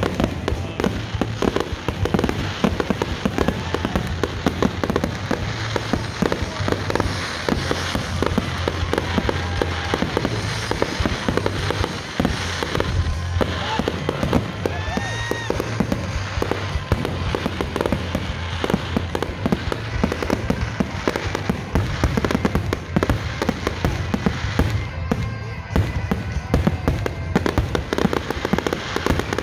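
Fireworks display: aerial shells launching and bursting in dense, continuous bangs and crackles, with a few short rising whistles about halfway through.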